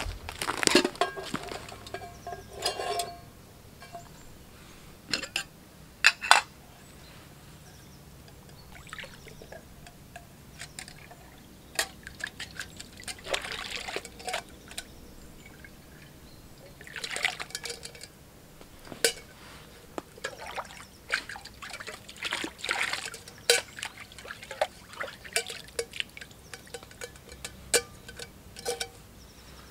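Lake water splashing and trickling in several short bursts as hands and a small pot dip into it at the shoreline, with light clicks and knocks between.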